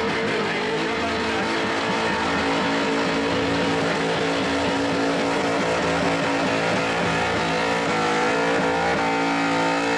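Holden Commodore V8 held at high revs in a burnout, the rear tyres spinning and smoking on the bitumen. The engine note stays steady, then wavers a little near the end.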